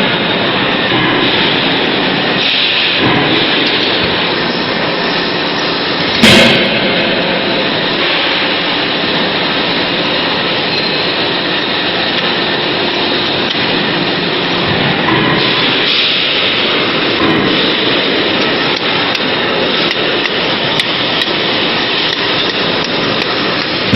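Steady, loud noise of factory machinery running, with one sharp bang about six seconds in.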